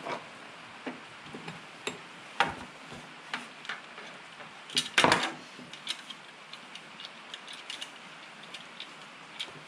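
Scattered clicks and light knocks of hard plastic and metal chainsaw parts being handled, with a louder clatter of several quick clicks about five seconds in.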